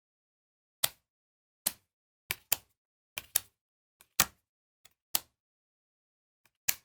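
Trading cards being handled and set down one after another, making about nine short, sharp clicks at uneven intervals, roughly one a second.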